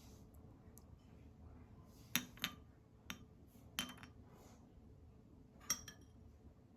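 About five light clinks of kitchenware, dishes or utensils knocking together, each with a short ring, spread between about two and six seconds in.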